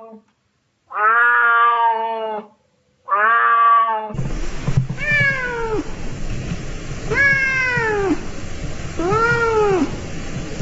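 Two cats meowing in turn. First, a white-and-grey cat gives two long meows. Then, after a cut about four seconds in, a tabby kitten gives three meows that each rise and fall in pitch, over steady background noise.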